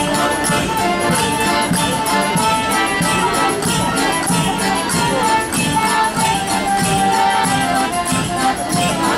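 Live Spanish folk dance music: held melodic notes over a fast, steady beat of sharp rattling percussion clicks.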